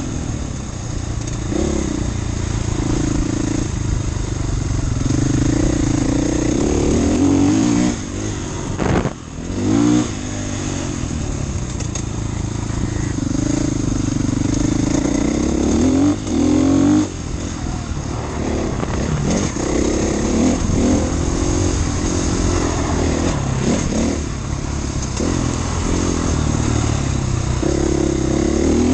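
Husqvarna FE450 enduro motorcycle's single-cylinder four-stroke engine being ridden, revs rising and falling repeatedly with the throttle and gear changes, and a brief drop about nine seconds in.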